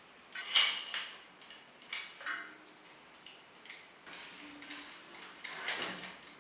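Small sharp clicks and rattles from a Shimano combined brake and shift lever as its gear cable and housing are fitted and the lever is handled. The loudest click comes about half a second in, with a few lighter ones through the middle and a quick cluster near the end.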